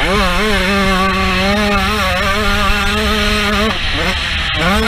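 A 125cc two-stroke motocross bike engine, heard from the rider's camera, held at high revs down a straight with a steady, even pitch. Near the end the revs dip briefly, as on a shift or throttle lift, then climb again.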